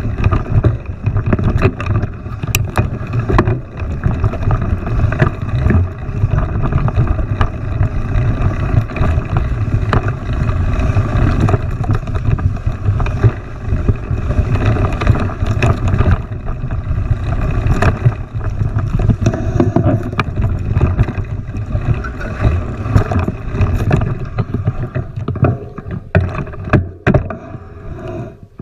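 Continuous low rumble with wind buffeting on the microphone, broken by scattered short clicks and knocks, several close together near the end.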